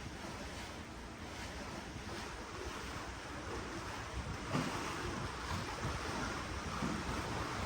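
Ocean water washing and splashing below a cruise ship, with wind buffeting the microphone. The wash gets a little louder about halfway through.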